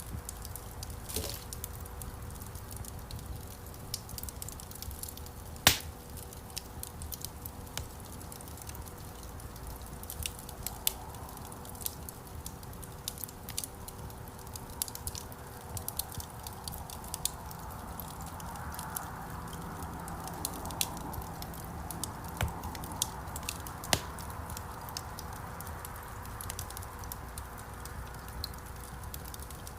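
Wood campfire crackling: a steady scatter of small pops over the low rumble of the burning, with a louder snap about six seconds in and another later on.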